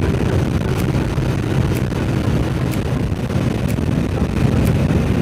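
TVS Apache RTR 160's single-cylinder engine running steadily at cruising speed, mixed with wind rushing over the microphone. A faint high tick recurs about once a second.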